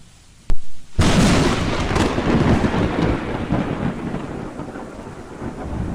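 Thunder sound effect for a lightning logo animation: a sharp crack about half a second in, then a loud rolling rumble from about a second in that slowly fades.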